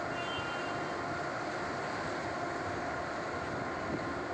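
Steady mechanical drone of a large ro-ro ferry's engines as it manoeuvres in to berth, with a few faint steady tones over the rumble.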